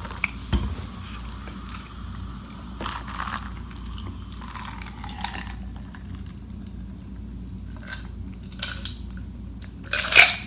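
Pepsi fizzing over ice in a glass, then sipped and swallowed close to the microphone: soft mouth clicks and swallows, with a loud gulp near the end.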